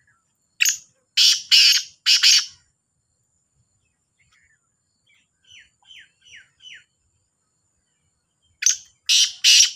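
Caged black francolin calling: a harsh, grating phrase of four notes in the first couple of seconds, and another such phrase near the end.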